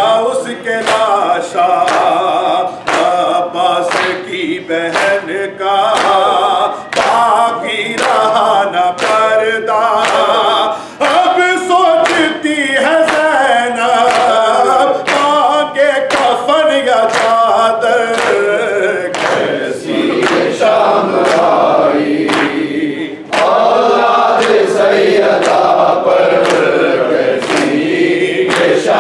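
Urdu noha sung unaccompanied by a male reciter with a group of men, to a steady beat of hands striking chests (matam) at about one and a half strikes a second. The beat drops away for a few seconds about two-thirds of the way through.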